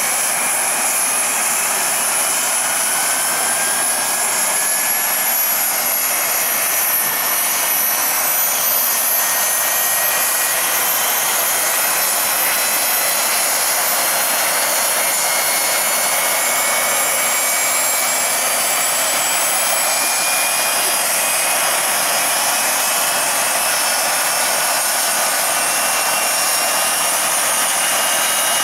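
Small gas turbine of a large-scale RC EC-120 model helicopter running on the ground: a hissing rush with a high whine that rises slowly in pitch as the turbine and rotor spool up.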